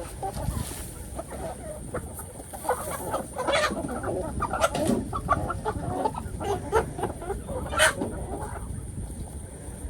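Chickens clucking and squawking, several birds calling in short, irregular calls that grow busiest in the middle, with one sharp, loud squawk near the end.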